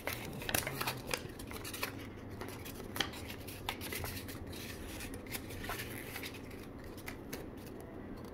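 Paper inserts and a cardboard box being handled: short taps, scrapes and clicks as the cards and user manual are moved about in the box, busiest in the first few seconds.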